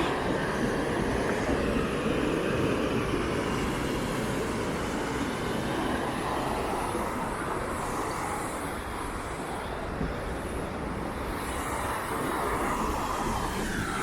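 River water rushing steadily through the rocky rapids of the shut-ins, a loud constant rush with no break.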